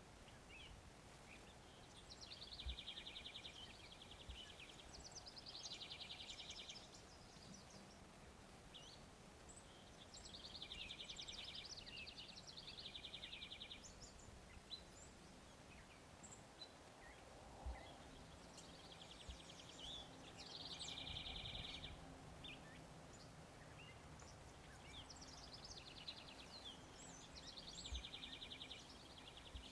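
Faint songbird song: a short, rapid trill repeated several times with pauses of a few seconds between, over a low background hum, with a few soft knocks.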